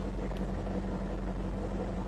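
A steady engine drone with a low rumble and a constant hum, unchanging throughout.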